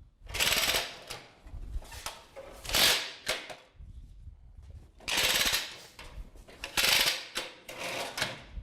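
Hand saw cutting a board on a sawhorse: about five slow rasping strokes, each about half a second long, with quieter scraping between them.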